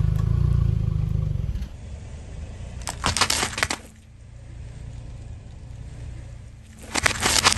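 Car tyre rolling over a row of wrapped hard-candy lollipops: a low rumble for the first second or so, then a short burst of cracking and crunching about three seconds in as the candy shatters. Another burst of sharp cracks comes near the end.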